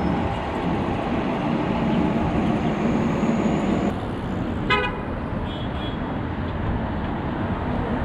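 Steady city street traffic, cars and buses running past, with one short vehicle horn toot a little past halfway.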